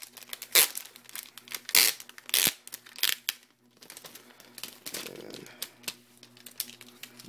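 A new Apple wireless keyboard's protective wrapping crinkling and tearing as it is unwrapped by hand, in irregular bursts that are loudest in the first few seconds.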